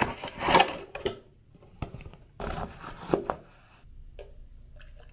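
A cardboard hair-dye box and its kit being handled: a handful of short rustles, scrapes and light knocks.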